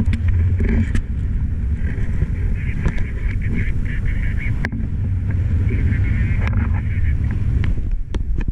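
Wind rushing over a GoPro's microphone in paragliding flight: a steady, heavy low rumble, with occasional sharp clicks and a wavering high tone that comes and goes twice.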